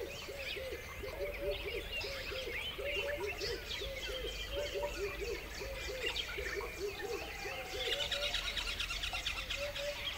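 Outdoor birdsong chorus: many birds chirping at once over a steady run of short, low, repeated calls, with a fast high trill joining in about eight seconds in.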